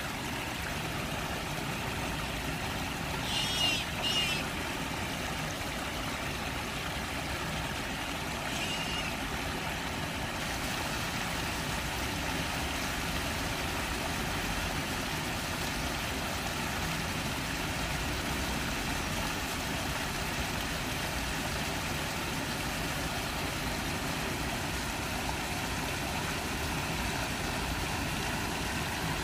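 Steady background rush with a short burst of high peeping from eastern spot-billed ducklings about three and a half seconds in, and a fainter peep near nine seconds.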